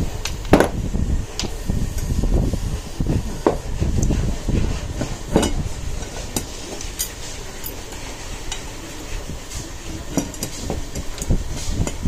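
Painted steel mounting brackets clanking and clicking as they are handled and slid together on a workbench: scattered sharp metal knocks and lighter taps over a low rumble.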